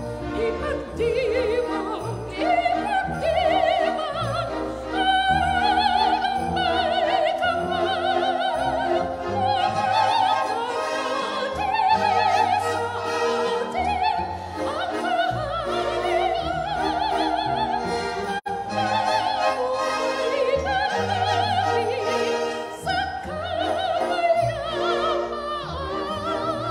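A classically trained woman's voice singing with strong vibrato into a microphone, accompanied by an orchestra with strings.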